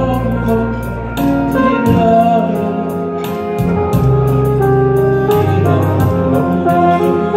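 Male vocal choir singing live over electronic keyboard accompaniment, with a bass line and a steady percussion beat.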